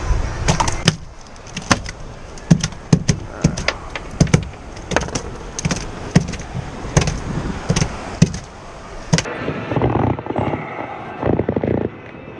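An irregular series of sharp knocks and clicks, about one or two a second, giving way after about nine seconds to a duller, rumbling noise.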